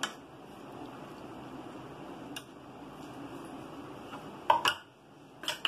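Steel ladle scraping and clinking against a metal kadai while curry is ladled out, a single clink about halfway and a few sharper, louder knocks near the end, over a steady low hiss.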